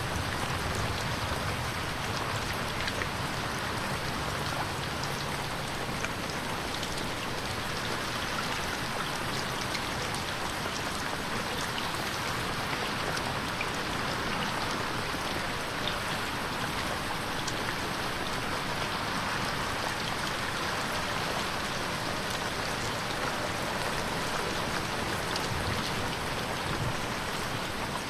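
Steady rain pattering on a window, a dense even hiss of rain with many small individual drop ticks.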